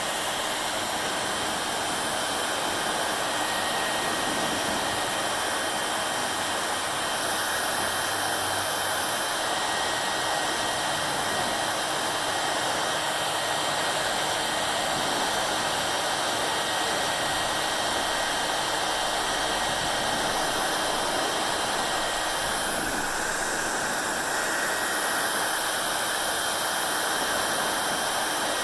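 Hair dryer blowing steadily: an even rush of air with a faint high whine from its fan motor, the tone shifting slightly a couple of times.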